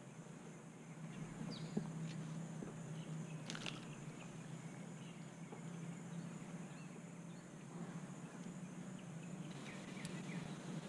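Quiet outdoor pond-side ambience with a low steady hum and scattered faint bird chirps, broken once, about three and a half seconds in, by a single short sharp sound.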